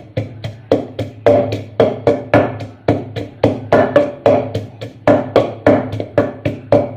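Pestle pounding garlic and chilies in a mortar for chili paste: steady repeated strikes, about three a second, each with a short ringing from the mortar.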